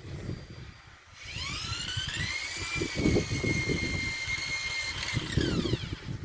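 A handheld electric power tool spins up about a second in with a rising whine, runs at a steady pitch for about four seconds, then winds down near the end. An irregular low rumble runs underneath.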